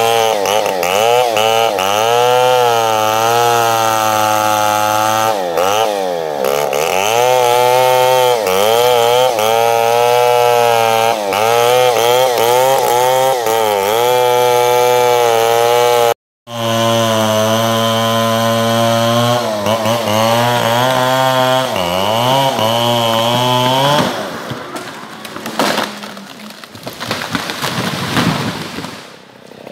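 Chainsaw cutting into a tree trunk at high revs, its pitch repeatedly dipping under load and recovering. There is a split-second dropout about sixteen seconds in, and after about 24 seconds the saw's steady note gives way to quieter, ragged noise.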